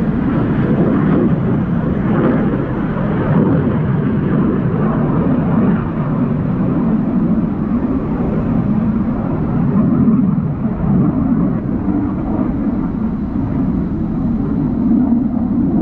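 Distant F-35 Lightning fighter jet circling overhead, its afterburning turbofan engine making a steady low rumbling roar. The higher hiss in it dies down after the first few seconds while the low rumble holds.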